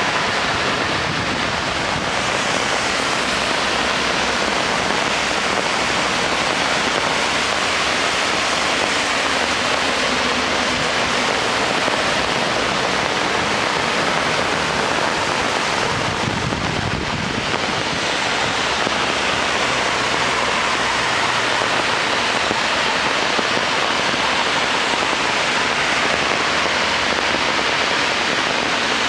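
Steady hiss of heavy rain and car tyres running through water on a soaked motorway, with a low hum from passing engines.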